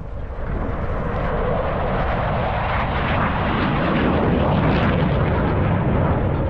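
Dassault Mirage 2000D fighter jet passing in a display, its turbofan noise swelling from about a second in and loudest about four to five seconds in.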